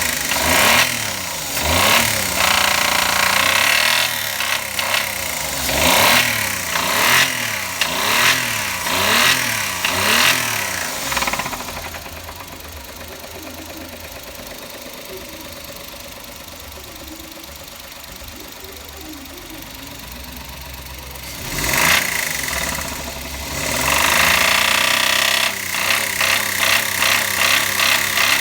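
Engine with a knocking noise revved up and down repeatedly, settling to a quieter idle about 12 s in, then revved again from about 22 s with quick blips near the end. The owner takes the knock for worn-out bearing metal, which a MotorUp oil additive has not cured.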